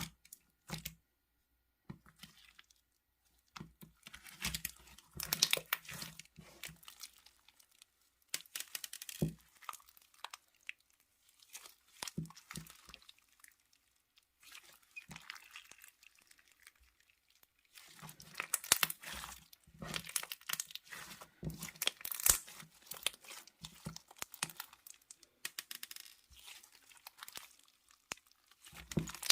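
Hands squishing and stretching slime, giving irregular runs of sticky crackling clicks with short quiet pauses between them.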